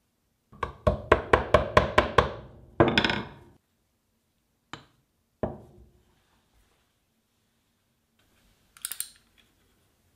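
Hammer tapping on workbench parts: a quick run of about eight sharp knocks, about four a second, then a heavier strike that rings briefly. Two single knocks follow, and a short clatter of light clicks comes near the end.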